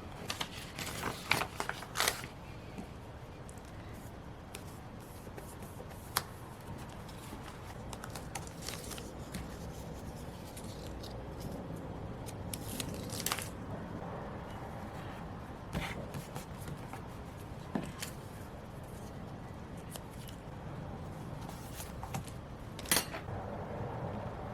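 Close-up paper-crafting sounds of decorating a planner page: paper and stickers being handled, with scattered light clicks and snips over a faint steady hiss.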